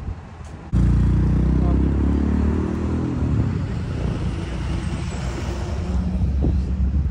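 Engine of a classic red Jaguar XJ-S convertible driving slowly past close by, a loud low drone. It cuts in suddenly about a second in and holds, dipping a little in pitch early on.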